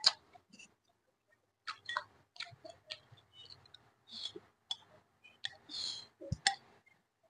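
Close-up eating sounds: mouth clicks and smacks of chewing vegetables and rice, with chopsticks clicking against a glass rice bowl as rice is pushed in, in irregular sharp clicks. A dull low thump about six seconds in.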